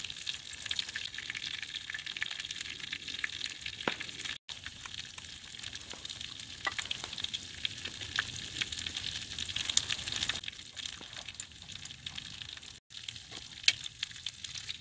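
Lamb chops, with bell peppers and garlic, sizzling and spattering steadily on a hot griddle pan, a dense crackle of tiny pops. The sizzle cuts out for an instant twice, and metal tongs give a sharp click against the pan near the end.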